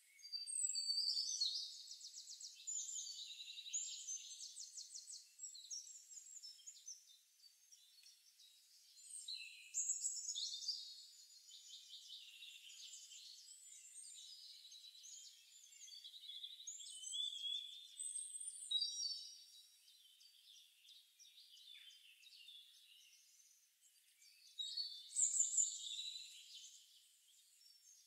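Forest birdsong ambience recording: several songbirds singing in repeated phrases of rapid, high-pitched trills and chirps, with quieter gaps between them.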